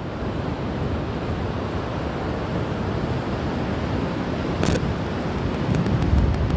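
Surf breaking on a sandy beach with wind buffeting the microphone. A brief sharp swish comes about two-thirds of the way in, and faint regular ticking near the end.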